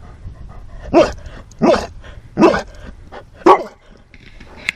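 A dog barking four times in a row, short loud barks spaced roughly a second apart.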